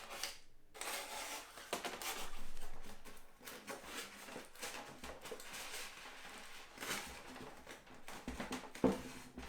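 Cutter knife slicing through insulation board: uneven scratching with small clicks, loudest about two to three seconds in, and a sharp knock near the end.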